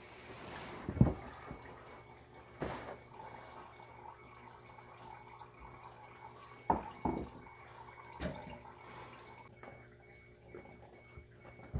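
Used engine oil and flush dripping from the engine into a drain pan, with several sharp knocks from handling parts under the car, the loudest about a second in.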